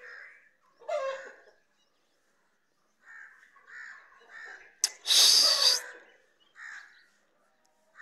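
Birds calling: a handful of short chirping notes, and about five seconds in one loud, harsh squawk lasting about a second.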